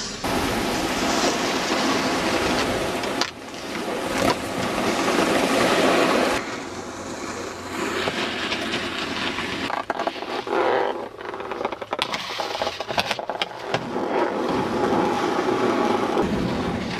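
Snowboards scraping and sliding over packed snow, heard as a hissing rush in short stretches that change abruptly. There are a few sharp knocks partway through.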